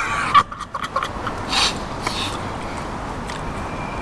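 Two people eating with their hands: a few small clicks and two brief breathy bursts in the first couple of seconds, over a steady background hiss.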